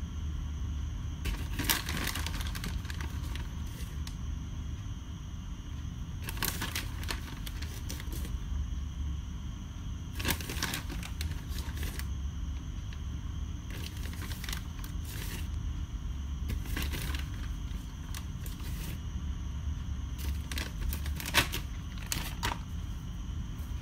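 A plastic bag of shredded mozzarella crinkling in short spells, about every three to four seconds, as a hand reaches in and pulls out cheese, over a steady low hum.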